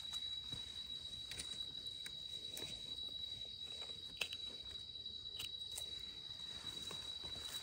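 A steady high-pitched insect trill, with scattered faint clicks and rustles from hands and a small knife working mushrooms out of soil and dry leaves.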